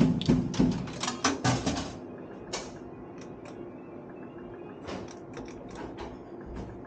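Quick run of mechanical clicks and clacks from a coin-operated bar slot machine for about two seconds, then scattered single clicks, with a small cluster of them about five seconds in.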